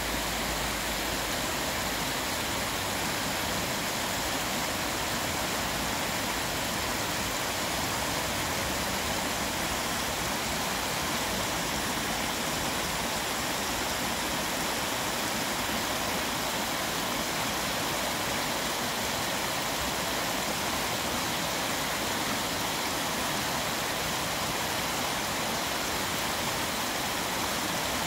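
Shallow stream running fast over rocks and riffles, a steady, unbroken rush of water.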